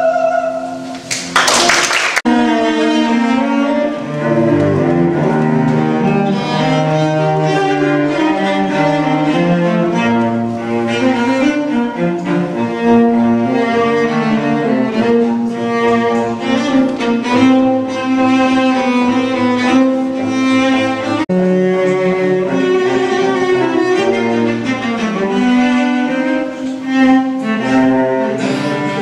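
A woman's held sung note ends about a second in, cut off by a brief burst of noise. Then a cello plays a slow classical melody.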